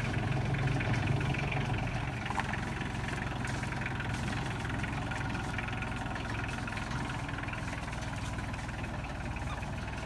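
A Kioti CK3510 compact tractor's diesel engine runs steadily as the tractor creeps along in low range. The engine fades slightly as it moves past.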